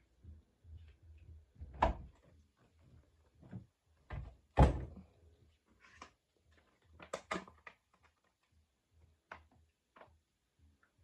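Irregular knocks and clunks from a washing machine being handled, such as its door or lid being opened and shut. The loudest bang comes about four and a half seconds in, with a quick run of clicks around seven seconds.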